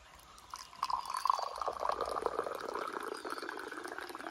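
Water running or trickling with small splashes, starting faint and getting louder about a second in, with a few faint high chirps over it.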